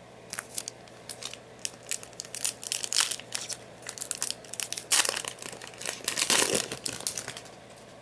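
Foil wrapper of a Yu-Gi-Oh booster pack crinkling and tearing open in a quick run of sharp crackles. The loudest crackles come about five seconds in and again a second later, then stop shortly before the end.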